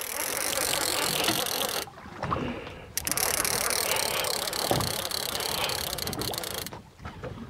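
Fishing reel being cranked to bring up a hooked fish, wound in two spells that stop for about a second roughly two seconds in and again near the end.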